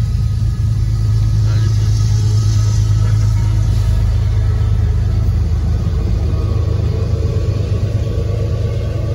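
Steady low rumble of a Union Pacific empty coal train rolling past at a grade crossing, its empty coal hoppers going by, heard from inside a car.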